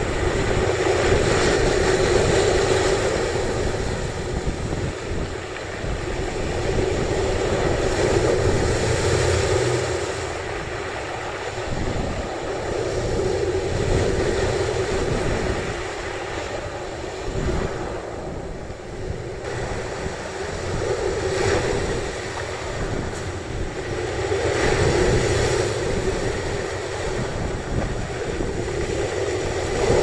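Sea surf washing onto the shore in slow swells that rise and fall every several seconds, with wind buffeting the microphone.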